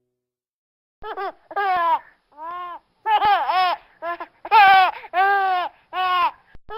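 A baby laughing: after about a second of silence, a string of short, high-pitched laughing bursts in quick succession.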